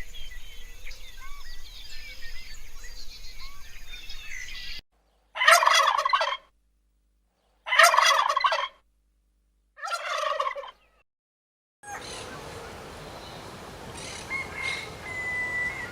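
Domestic turkey gobbling three times, each rattling call lasting about a second, roughly two seconds apart. Before them, a chorus of many small birds chirping. After them, a steady outdoor hiss.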